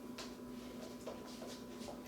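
Faint, scattered light clicks and rustles of small handling noises over a steady electrical hum.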